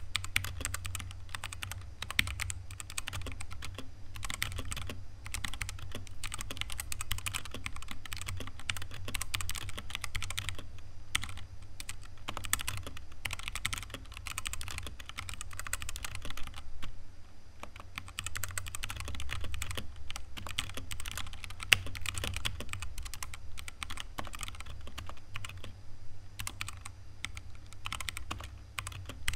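Fast typing on a Redragon Draconic K530 60% mechanical keyboard with brown switches: a dense, irregular run of keystroke clacks, with a short pause a little past halfway. A steady low hum sits underneath.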